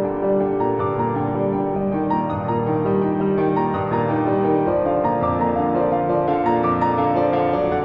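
Piano music, with notes held and overlapping in a slow, calm piece.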